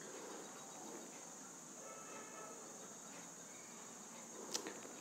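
A quiet pause in a room: faint room tone with a steady high-pitched hiss, and a single small click about four and a half seconds in.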